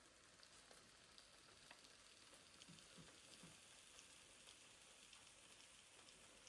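Near silence: a faint steady hiss with a light scattering of tiny crackles.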